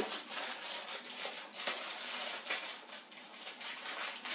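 Thin plastic packaging bags crinkling and rustling as they are crumpled and unwrapped by hand, a continuous dense crackle.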